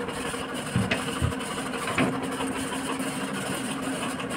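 A steady mechanical hum, with a few light knocks and clinks of a serving ladle in an aluminium pot.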